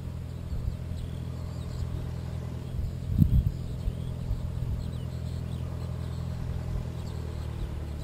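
Light piston aircraft, a Cessna 172, running with a steady low drone of engine and propeller. A brief louder low rumble comes about three seconds in, and faint bird chirps sit high above the drone.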